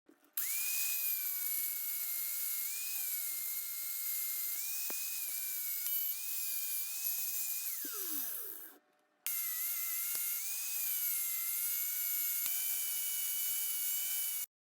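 High-speed rotary grinding tool whining steadily while trimming a seat belt part so it will fit. About eight seconds in it spins down with falling pitch, then it starts again a moment later and runs on.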